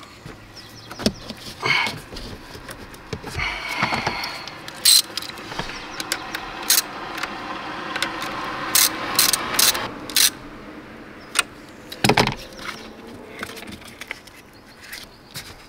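Hand socket ratchet clicking and clinking in short, irregular spurts as a bolt on a car's 12-volt battery hold-down bracket is turned down.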